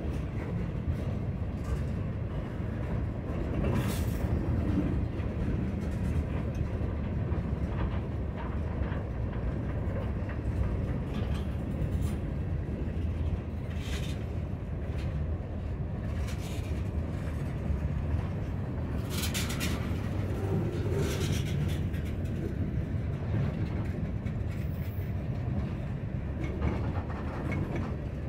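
Freight gondolas rolling past close by: a steady rumble of steel wheels on the rails, with a few brief harsh noises, the strongest about two-thirds of the way through.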